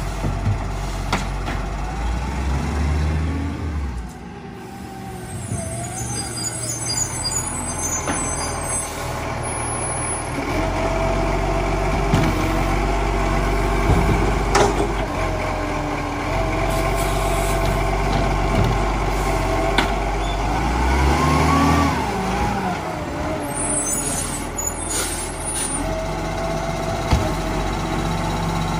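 Side-loading garbage truck at work: its diesel engine runs steadily and twice revs up and down as the hydraulic arm lifts and tips wheelie bins, with sharp bangs and clunks from the bins and arm.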